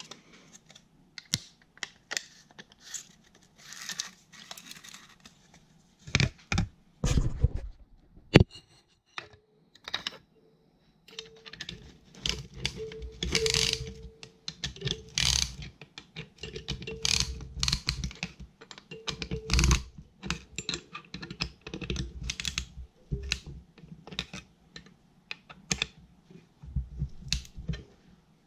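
Metal clicks, clinks and light taps of a band-type piston ring compressor being handled and set over pistons in a Farmall H engine block. A few dull thumps come from a piston being driven down into its cylinder sleeve with the rubber handle of a hammer.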